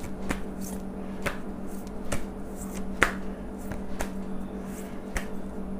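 Irregular sharp clicks and snaps of a tarot deck being handled and shuffled in the hand, the loudest about three seconds in, over a steady low hum.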